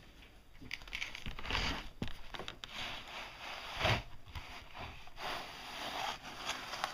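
Irregular rustling and crinkling with scattered knocks, the loudest knock about four seconds in.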